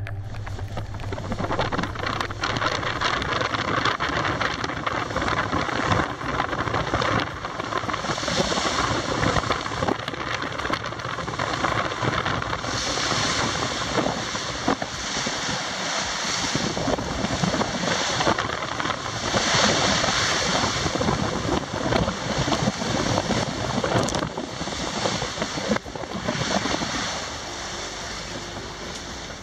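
Wind buffeting the microphone over the rush of breaking waves along a sailing yacht's hull in heavy seas: a loud, noisy rush that surges and eases every few seconds.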